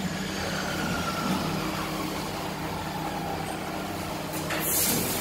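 Amada Quattro CNC laser cutting machine running: a steady machine hum with a faint whine that slides down in pitch about a second in, and a short burst of hiss about four and a half seconds in.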